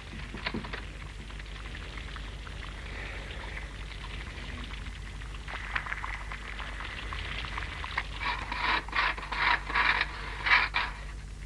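Scratching and scraping at a wooden door. A run of short rasping strokes starts about eight seconds in, over a steady faint rustling hiss.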